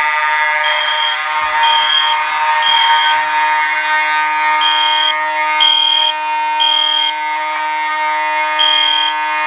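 Fire alarm system in alarm after a manual pull station has been pulled. A steady buzzing horn sounds throughout, and over it a higher beep sounds in sets of three with a pause between sets: the temporal-three evacuation pattern.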